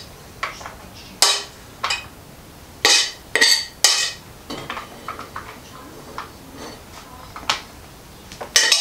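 Metal spoon clinking and scraping against a stainless steel saucepan as cooked food is scooped out into meal-prep containers: irregular sharp clinks, several in quick succession about three to four seconds in.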